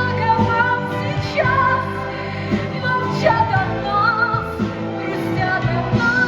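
Music from a stage musical's song: a slow melody with wavering held notes over instrumental accompaniment, and a long held note near the end.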